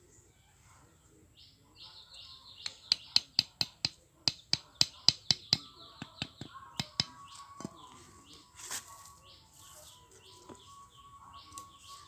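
A curved blade chopping in quick strokes: a run of sharp knocks, about four a second, lasting some five seconds and stopping well before the end. Short, high chirps repeat throughout.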